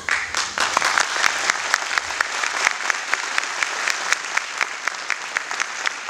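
Audience applauding: a dense burst of clapping that settles into an even beat of claps, about four a second, and thins near the end.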